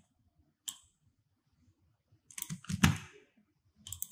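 Computer keyboard and mouse clicks: a single click a little under a second in, a quick run of clicks around the three-second mark, and a few more near the end.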